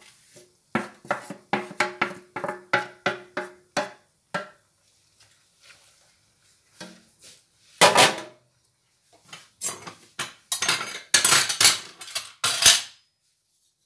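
A metal blade taps and scrapes against a metal bowl, about three strikes a second with a ringing note, pushing vegetables into a wok. About eight seconds in there is one loud clatter, followed by a run of scraping and clattering cookware.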